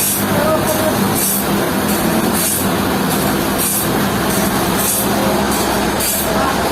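Sawmill machinery running steadily, with a short hiss repeating about every second and a bit over a low, even hum.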